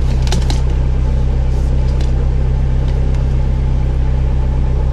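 Sewer hydro-jetter's engine running steadily with a low, even drone, and a couple of faint clicks just after the start.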